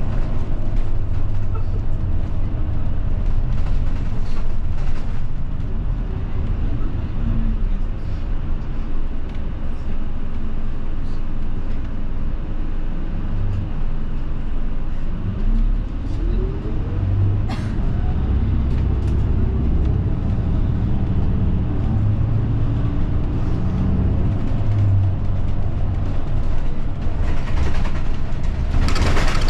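Route bus heard from inside the cabin while it is moving: a steady low engine and road rumble. Around the middle the engine pitch rises as it accelerates, with a sharp click. A burst of air hiss comes near the end.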